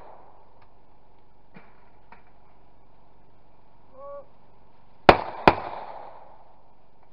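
Two shotgun shots less than half a second apart, each fading in a short echo.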